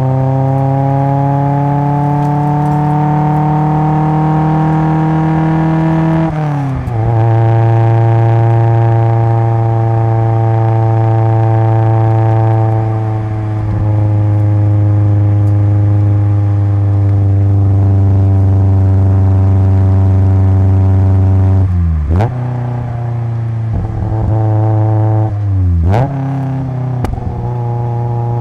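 Exhaust note of a 1983 Toyota AE86 Sprinter Trueno with a swapped-in AE111 20-valve 4A-GE four-cylinder on individual throttle bodies, heard from the rear bumper through an RS Harada single-tail muffler. The revs climb slowly under acceleration and fall sharply with an upshift about six seconds in. The note then holds fairly steady, and twice near the end the revs dip sharply and jump back up.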